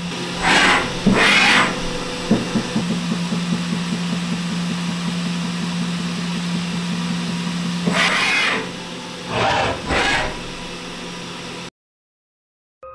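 DMG Mori DVF 5000 CNC machining centre running a tool-measuring cycle on a Renishaw RTS tool setter: a steady machine hum, pulsing for several seconds in the middle, with four short whooshes. The sound cuts off abruptly near the end.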